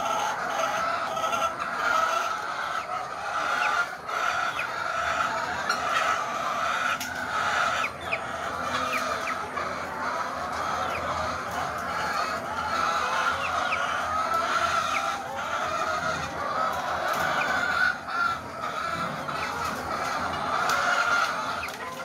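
A flock of caged laying hens clucking together in a continuous, dense chorus, with a few faint clicks scattered through it.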